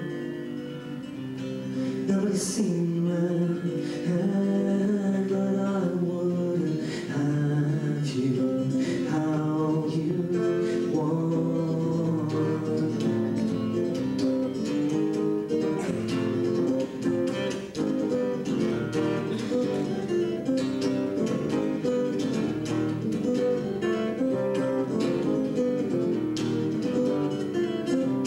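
Live solo acoustic guitar music: a steel-string acoustic guitar picked in a steady rhythm.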